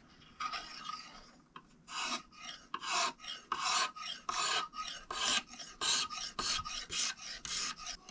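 Kitchen knife blade being stroked back and forth on a natural Arkansas whetstone, a dry rasping scrape about twice a second, as the edge is sharpened.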